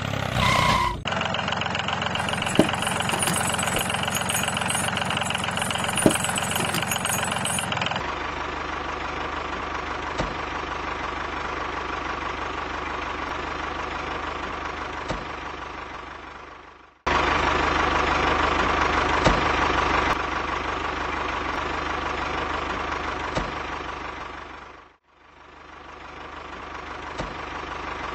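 Tractor engine running steadily, in several stretches joined by abrupt changes about one, eight and seventeen seconds in, with a short fade out and back in about twenty-five seconds in.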